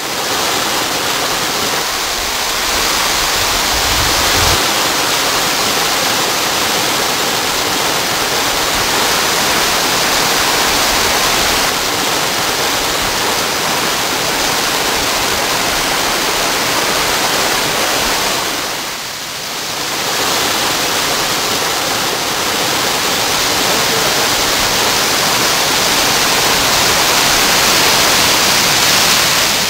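Rushing water of a woodland waterfall and its creek: a loud, steady rush that drops away briefly about two-thirds of the way through and then returns.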